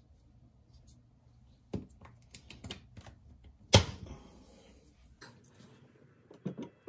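Scattered sharp plastic clicks and knocks as a refrigerator shelf rail is fitted back against the fridge's plastic liner, with one loud snap a little past halfway.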